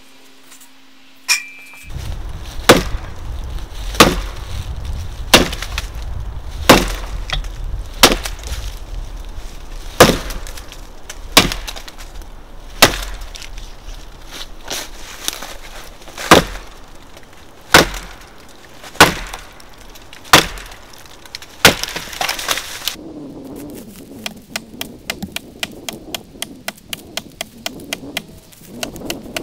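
Hand-forged axe on a hickory handle chopping into a standing tree trunk: sharp blows roughly every second and a half, about fourteen in all. Near the end the blows stop and give way to a faster run of light ticks.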